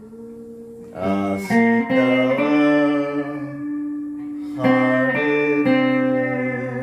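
Guitar music: plucked chords struck a few times, each ringing on and fading.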